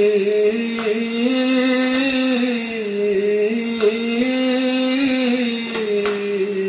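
Male voice singing a slow phrase of long held notes that glide gently up and down in pitch.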